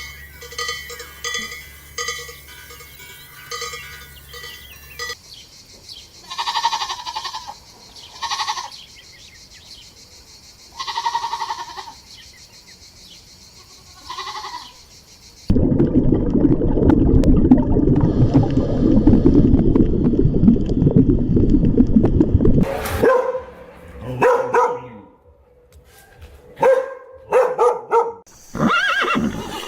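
Bell-like rhythmic ringing for the first few seconds, then four separate bleats from small livestock a couple of seconds apart. Midway a loud, low rumbling noise comes in for about seven seconds, and near the end there is a run of short animal calls.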